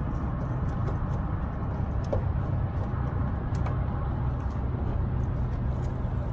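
Idling heavy truck engine: a steady low hum, with faint light clicks here and there.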